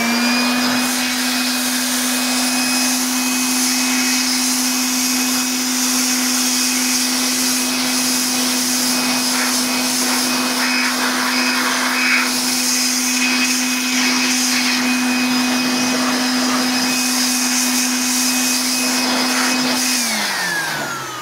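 Handheld electric air blower running steadily with a motor whine, blowing dust off a laptop keyboard. Near the end it is switched off and winds down, its pitch falling.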